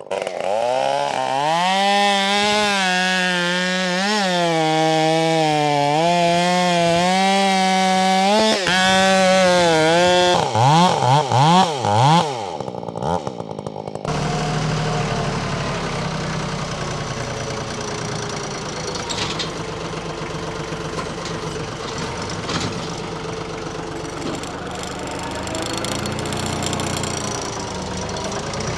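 Husqvarna 572XP two-stroke chainsaw at full throttle, cutting through a thick pecan trunk, its pitch wavering under load for about ten seconds. It then blips its revs a few times and drops off. From about halfway on, an engine idles steadily at a much lower pitch.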